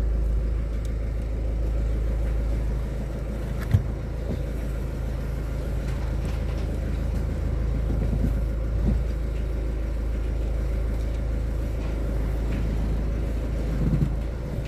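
Renault Mégane II running with a steady low rumble, the repaired steering giving no knock or noise; a single sharp click about four seconds in.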